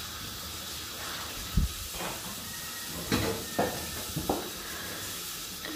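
A steady hiss, with a few short knocks and rubs as a phone is handled close to the microphone.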